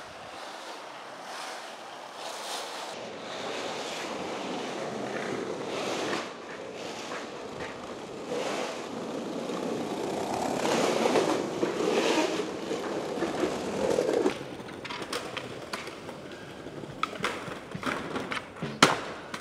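Skateboard wheels rolling on an asphalt street, the rumble growing louder as the riders approach and stopping abruptly about fourteen seconds in. Then come sharp clacks of a skateboard's tail and trucks striking a stone ledge, several of them near the end.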